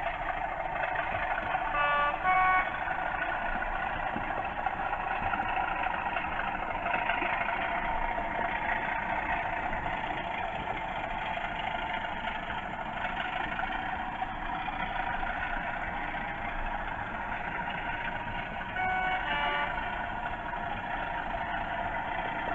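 Hornby TTS sound decoders in model Class 37 diesel locomotives playing a steady diesel engine sound through their small speakers. A two-note horn sounds about two seconds in and again near the end.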